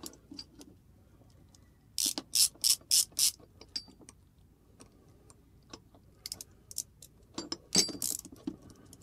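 Hand ratchet driver clicking in three short runs of quick clicks, backing the pointed screws of a gas key staking tool out of an AR-15 bolt carrier.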